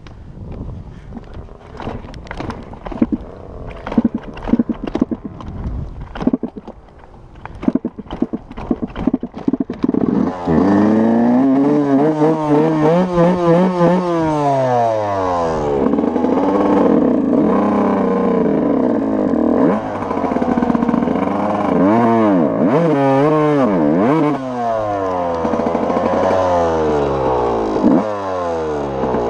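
Irregular knocks and clattering for about ten seconds. Then a dirt bike engine starts running loudly, its pitch rising and falling over and over as the throttle is worked.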